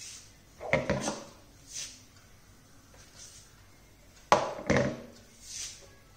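Two pairs of sharp knocks about three and a half seconds apart, each pair followed by a short soft hiss: something being picked up, handled and set down.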